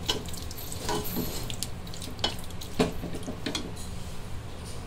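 Wooden spatula stirring mutton pieces in an aluminium pressure cooker, knocking and scraping against the pot several times, over a faint sizzle of the meat cooking in ghee and oil.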